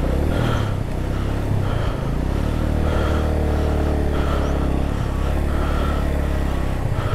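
Motorcycle engine running steadily at low speed while the bike is ridden over a rough off-road track, its note shifting a little in the middle.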